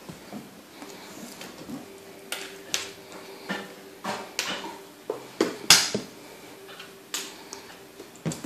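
Irregular taps and knocks of a toddler's hands and sneakers on carpeted stairs and a wooden top step as he crawls up, the loudest knock a little past halfway.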